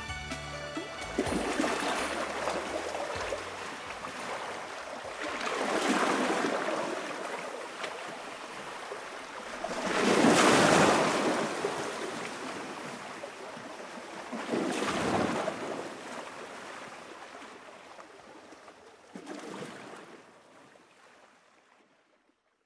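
Rushing noise that swells and falls back five times, about every four to five seconds, loudest midway, fading out near the end.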